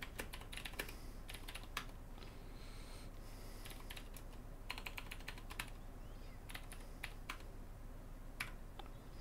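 Typing on a computer keyboard: scattered keystrokes in short runs, with a quick run of several about halfway through.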